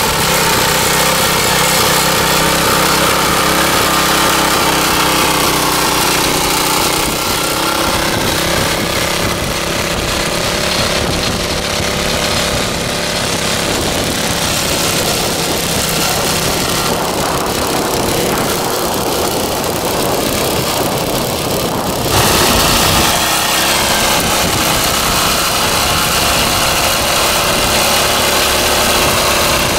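The 1977 Troy-Bilt Horse rear-tine tiller's original 6-horsepower Tecumseh single-cylinder engine running steadily under load while its tines churn hard, dry soil. About two-thirds of the way through the sound changes abruptly and gets slightly louder.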